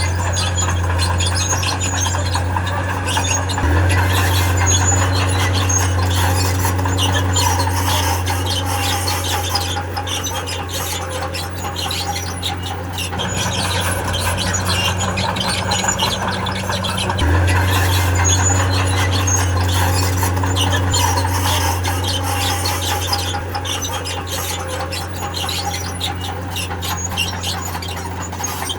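Crawler bulldozer working: diesel engine running under load with its steel tracks squealing and grinding. The engine revs up twice, about four seconds in and again about seventeen seconds in.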